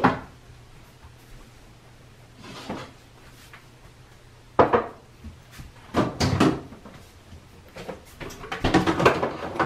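A few scattered knocks and clunks of kitchen containers and a door being handled, as food is taken out of the refrigerator and set on the counter. The knocks come a second or two apart over a faint low hum, and they cluster more busily near the end.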